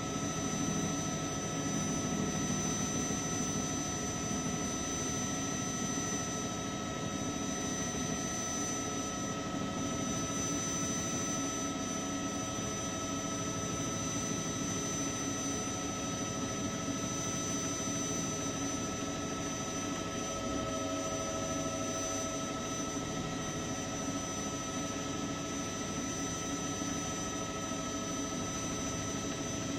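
News helicopter's turbine engine and rotors running steadily, heard from onboard: a constant whine made of several held tones over a steady rush.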